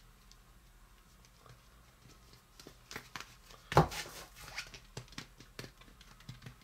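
Handling noise from working a toy cake-decorating icing tube: quiet at first, then scattered small clicks and taps, with one louder knock a little under four seconds in.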